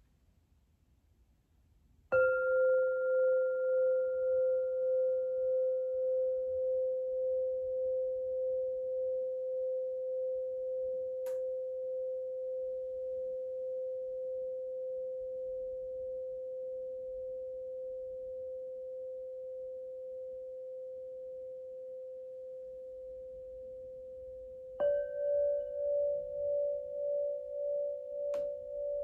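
A singing bowl struck once, ringing a steady tone that slowly fades with a gentle pulsing wobble. Near the end a second, slightly higher-pitched bowl is struck and rings together with the first.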